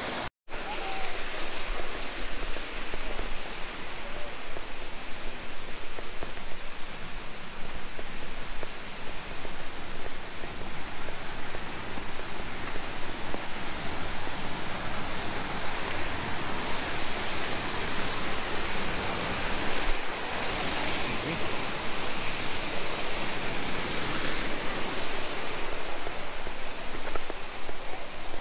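Steady rush of a waterfall, falling water making an even, unbroken noise, cut off for a split second just after the start.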